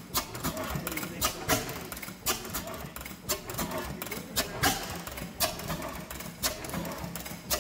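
Large vintage stationary gas engine, the Samson 50 hp unit, running slowly: sharp firing beats about once a second, some in quick pairs, over a steady mechanical clatter.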